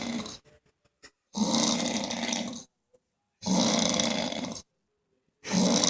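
A person snoring: rough snores about a second long, coming about every two seconds with silent pauses between.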